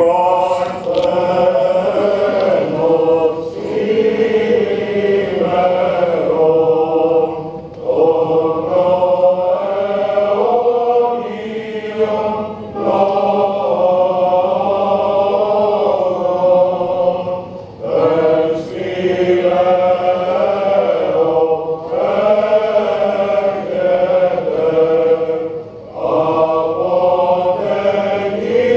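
Greek Orthodox liturgical chant sung by voices: a melody moves phrase by phrase over a steady held low note, with short breaks between phrases.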